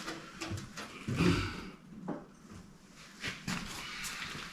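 A few short knocks and clicks of metal engine parts being handled during a diesel engine teardown, as a piston is pulled out.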